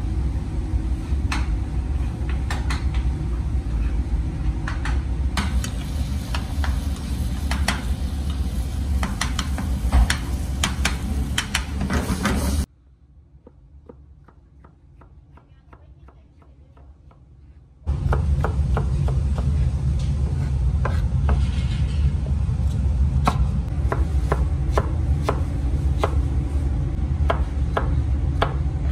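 Tomatoes frying in a pan while a spatula stirs and taps against it, over a steady low rumble. About 13 seconds in this gives way to a knife chopping peppers and onion on a plastic cutting board, with even, faint strokes at first. About 18 seconds in the chopping turns louder and the rumble returns.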